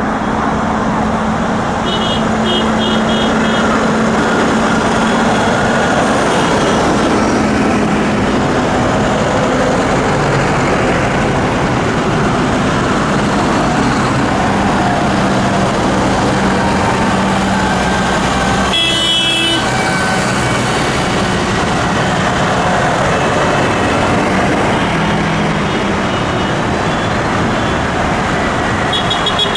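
A convoy of farm tractors driving past, their diesel engines running steadily over tyre noise on the road. A short high-pitched blast, like a horn toot, sounds about two-thirds of the way through.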